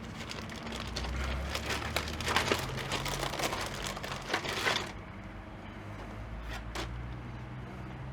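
Crinkling and clicking of a thin plastic welding-helmet cover lens being handled and worked into its plastic holder. The crackle is dense for about five seconds, then eases, with two sharp clicks near the end.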